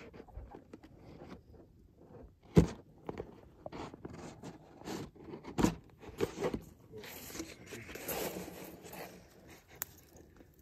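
Irregular crunching, rustling and scraping in dry leaves and grass, with scattered sharp clicks. The two loudest cracks come about two and a half and five and a half seconds in.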